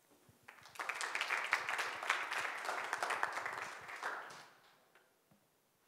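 Audience applauding, starting just under a second in and dying away after about four seconds.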